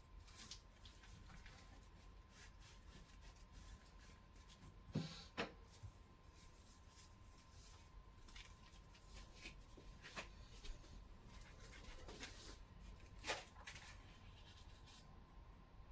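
Faint kitchen handling sounds: scattered light clicks and taps, with two sharper knocks close together about five seconds in and another near the end, over a faint steady hum.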